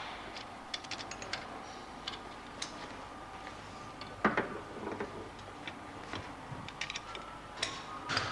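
Light metallic clicks and taps of an open-ended spanner and small steel parts on the aluminium block of a Ford Cosworth V6 turbo engine, as expandable bars on the crankcase studs are tightened to spread the block. There is a louder clank about four seconds in, over a faint steady hum.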